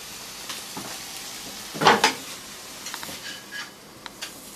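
Chicken frying in a pan on a gas stove, sizzling steadily. A brief loud clatter about two seconds in, and a few light clicks later on.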